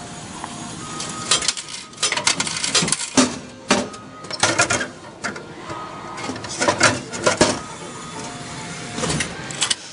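Ice cream vending machine dispensing a boxed ice cream into its pickup port, then the plastic flap door being pushed open and the box pulled out: a run of clacks, knocks and scraping rattles.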